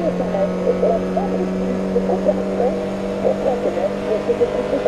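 Citroën Xsara WRC's turbocharged 2.0-litre four-cylinder engine pulling hard at full throttle in sixth gear, a steady note that climbs slightly as the car accelerates.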